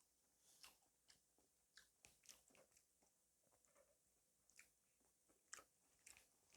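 Faint close-miked eating sounds: chewing, with a scatter of short wet smacks and clicks from the mouth.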